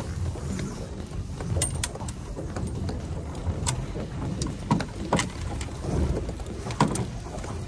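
Steady low rumble aboard a small boat at sea, with a handful of sharp knocks and clicks scattered through it.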